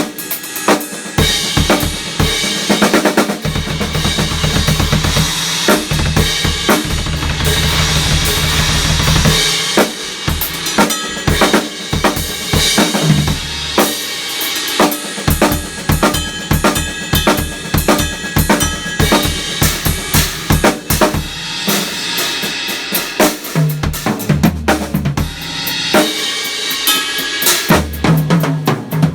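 A Sonor drum kit played as a solo groove: bass drum, snare with rimshots, toms and cymbals struck in a dense, continuous pattern. A stretch of rapid low drum strokes runs from about four to nine seconds in.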